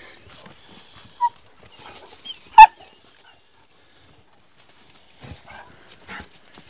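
Hunting hound barking at quarry holed up in the rocks: a short yip about a second in, then one loud, sharp bark. Faint scuffling follows near the end.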